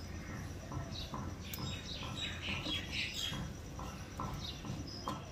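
Birds calling: one repeats a short note about twice a second, and others chirp higher around the middle, over a steady low rumble.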